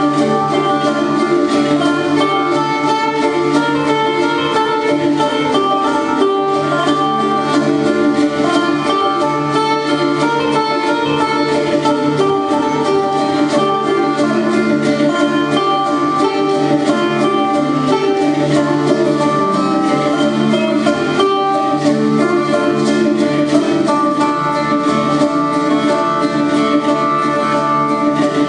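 Instrumental music led by plucked strings, with fast repeated notes at an even loudness.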